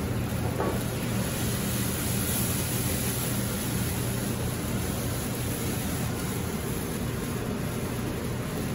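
Port and red wine reducing in a sauté pan on a gas burner while the alcohol burns off in flames: a steady sizzling, rushing hiss with a low hum beneath.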